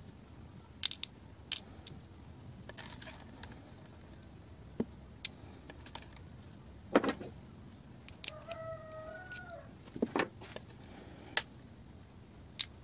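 Small metal drill-gearbox parts, planetary gears and loose steel balls, clicking and clinking as a hand picks them out of a plastic tub of gasoline, with louder knocks about seven and ten seconds in. A bird calls once in the background about eight seconds in, one wavering call lasting over a second.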